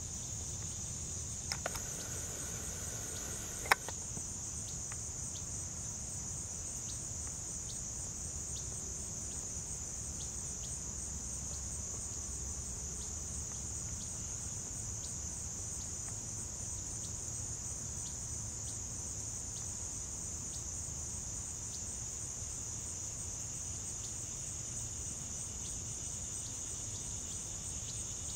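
Steady, high-pitched late-summer insect chorus that runs on without a break, with faint short ticks scattered through it. A single sharp click comes about four seconds in.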